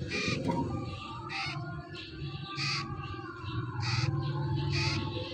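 A young green parrot chick calling: about five short, raspy squawks, roughly one a second, as it begs at a finger held to its beak.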